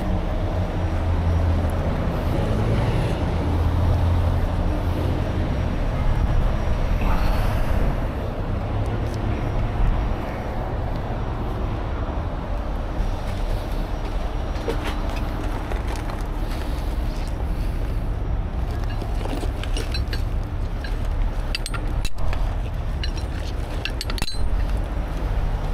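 Steady engine and road noise of freeway traffic and the heavy tow truck alongside, with a low engine hum strongest in the first few seconds. Near the end come a few sharp metal clinks as chain rigging is handled at the crane hook.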